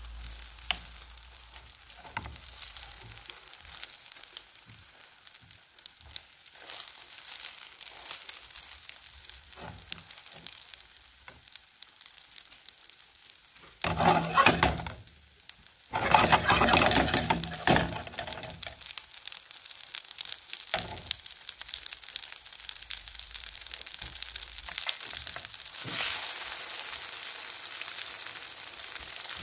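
Egg omelette frying in oil in a nonstick pan: a steady crackling sizzle with small pops, growing much louder for a few seconds about halfway through.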